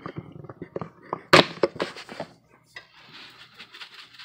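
A few clicks and knocks of a spice jar being handled, the loudest about a third of the way in, then a soft rhythmic patter as dried cilantro is shaken from the jar into the soup pot.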